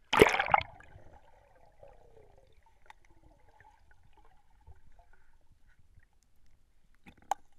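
A short loud splash as the camera plunges under the water, then faint muffled underwater sound with a thin steady hum, and one sharp click near the end.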